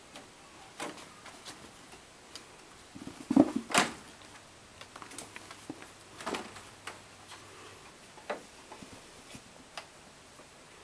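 Kittens playing: scattered light taps, scuffles and knocks of paws and small objects, the loudest cluster about three and a half seconds in.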